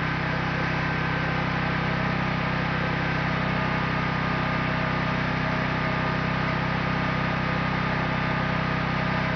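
Generator engine running steadily: an even, unbroken hum with a steady low drone.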